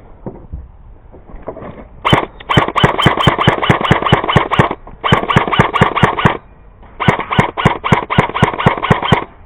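Airsoft gun firing three rapid bursts of evenly spaced shots, about six a second, each burst lasting one to three seconds.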